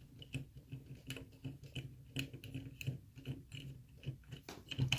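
Small irregular clicks and ticks, several a second, of door knob hardware being handled as a mounting screw is turned in by hand, with a slightly louder knock near the end.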